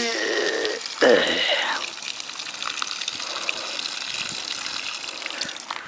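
Water pouring out of a broadhead-cut plastic milk jug onto grass. Two loud gurgles in the first two seconds, then a steady running stream.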